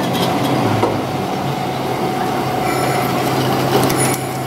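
Vintage 1000 mm narrow-gauge AC electric locomotive rolling slowly past, with a steady low hum and a thin higher whine over the rumble of its wheels on the rails.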